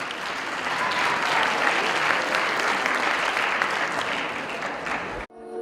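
Audience applauding steadily in a hall, cut off suddenly near the end as music begins.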